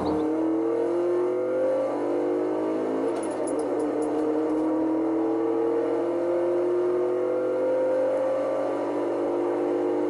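A car engine accelerating through the gears: its pitch climbs steadily, drops back at each gear change, and climbs again several times.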